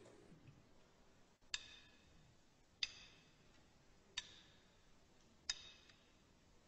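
Four sharp, evenly spaced clicks about a second and a third apart over faint room noise, a slow count-in just before the song starts.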